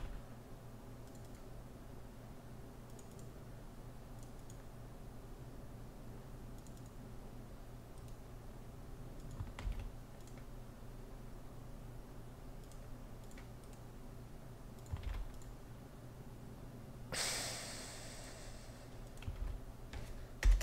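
Quiet room tone with a steady low hum, a few faint clicks, and one short breathy exhale about three-quarters of the way through.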